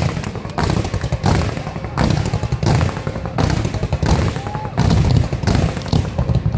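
Fireworks display: a regular series of bursts about every three-quarters of a second, each bang followed by a crackling haze, over a low rumble.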